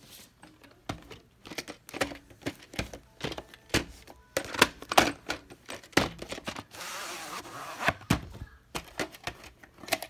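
Hard plastic VHS tape case and cassette being handled: an uneven run of clicks and knocks, with a scrape lasting about a second about seven seconds in as the cassette slides against its case.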